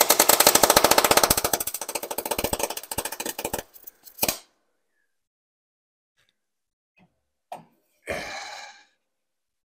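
Electric arc welding on a steel tractor frame: a dense, rapid crackle that stops about four seconds in. A click and a brief rustling noise follow near the end.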